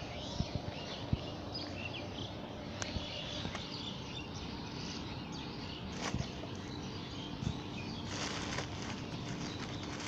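Birds chirping now and then, with plastic and paper rustling as garbage is handled and dropped into a plastic basket; the rustle is loudest about eight seconds in.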